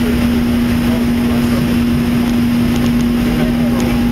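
Jet airliner's engines running, heard inside the passenger cabin: a steady, loud rush of engine and airflow noise with a constant low hum running through it.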